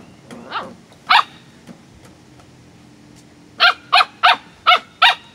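Corgi barking: a couple of single barks in the first second or so, then a quick run of short, sharp barks, about three a second, from about three and a half seconds in.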